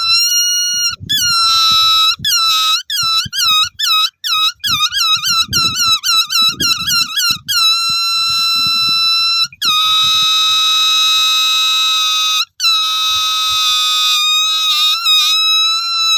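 Balloon squealing as air is let out through its stretched neck: a loud, high-pitched squeal that comes first as a run of short wavering squeaks, about two a second, then as long steady squeals with one short break. It sags in pitch near the end.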